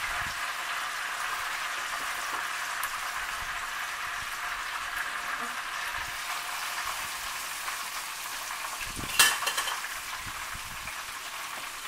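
Flour-coated pork chops frying in hot oil in a skillet: a steady sizzle, with one sharp clack about nine seconds in.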